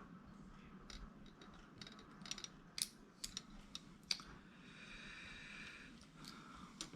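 Faint small clicks and ticks of plastic parts and a fine tool being handled while working the tiny connector of a Nintendo Switch Joy-Con, with a quick cluster of clicks in the middle and a soft hiss lasting about a second after it.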